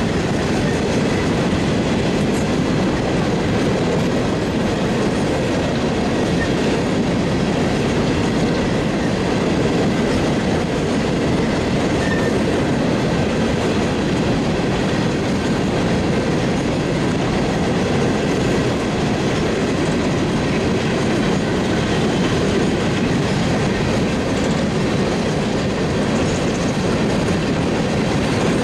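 Freight train of coal hopper cars rolling past, a loud, steady rumble of steel wheels on the rails.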